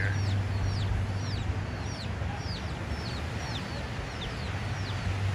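Chicks peeping steadily: a string of short, high chirps falling in pitch, about three a second.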